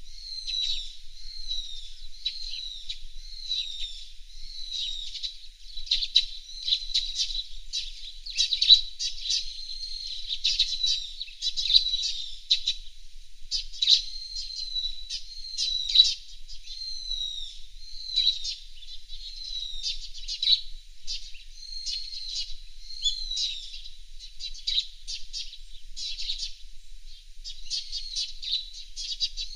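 Small songbirds chirping and calling without pause: a dense run of high, down-slurred notes mixed with quick sharp ticks.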